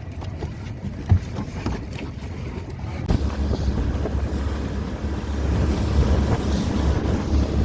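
Wind buffeting the microphone over the rush of a boat moving through water, louder from about three seconds in. A few knocks in the first seconds.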